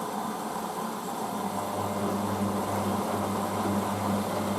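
Hoover DYN9144D3X washing machine filling with water for its first rinse: a steady hum with a low tone under an even hiss.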